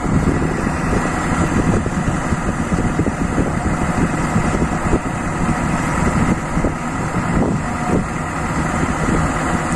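Vehicle engine running steadily through a loud exhaust.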